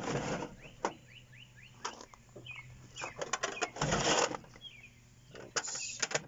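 Steel filing-cabinet drawers sliding open and shut on their runners, with metal clunks and clicks. The two longest slides come right at the start and about four seconds in. Small birds chirp in the background.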